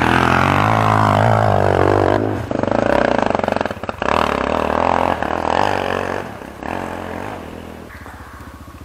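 Enduro dirt bike engine revving hard for about two seconds, its pitch sliding down, then a run of throttle bursts. After about six seconds it drops back and fades.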